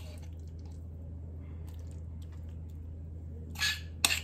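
A metal spoon scraping and knocking against a ceramic bowl as a soft, wet potato and cheese mixture is scooped out. There is a short scrape near the end, then a couple of sharp clinks, over a steady low hum.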